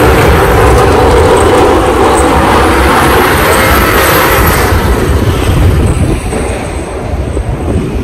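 Strong wind buffeting the microphone over a passing vehicle's engine, which fades away after about five seconds.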